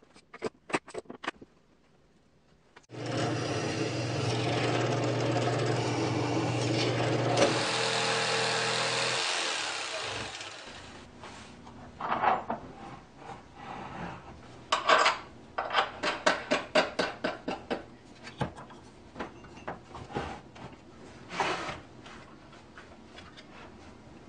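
Hand-held electric jigsaw cutting a wooden board, running steadily for about seven seconds before winding down. It is followed by a long run of wooden knocks and clatter as parts are handled and fitted.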